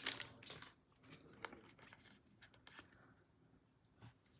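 Faint crinkle of a foil Pokémon booster pack wrapper dying away in the first second, then scattered soft clicks and rubs of trading cards being handled.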